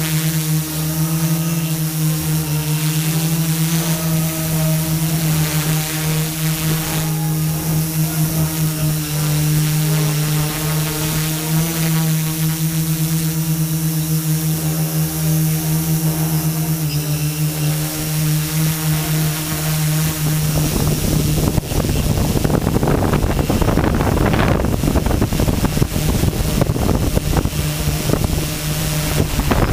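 Camera drone's propellers and motors humming steadily at a constant pitch, picked up by the camera on board. About two-thirds of the way in, wind starts buffeting the microphone in gusts over the hum.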